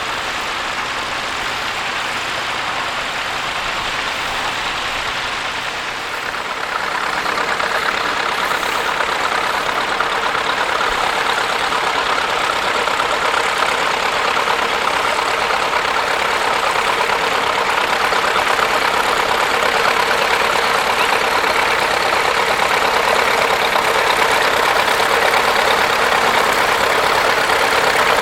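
Tractor engine running steadily, growing louder about six and a half seconds in and holding at that level.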